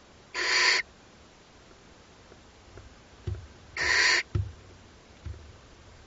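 Barn owl chicks giving hissing, snore-like begging calls: two harsh hisses about half a second long, one right at the start and one about four seconds in, with a few soft low thumps between them.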